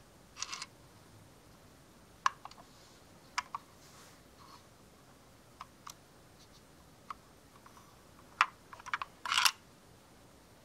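Handling noise from a small die-cast model van turned in cotton-gloved hands: scattered light clicks and taps, with a brief rub just after the start and a louder one near the end.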